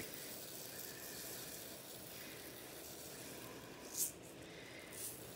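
Decorative filler sand pouring from a plastic jar into a rock tumbler barrel of glass and pebbles: a faint steady hiss, with a brief louder burst about four seconds in and a smaller one near the end.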